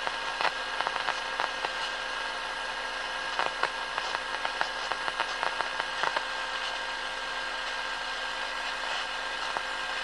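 VEF 202 all-band transistor radio hissing with static through its loudspeaker, with a few steady whistling tones. Irregular crackles and clicks break in through the first six seconds or so, then it settles to plain hiss.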